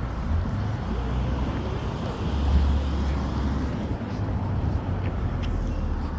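Low engine rumble of a heavy truck in street traffic, swelling a little louder about two and a half seconds in; no horn sounds.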